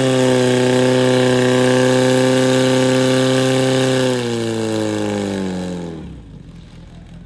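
Portable fire pump engine running flat out at steady high revs while pumping water through the attack hoses, then winding down over about two seconds and dying away about six seconds in.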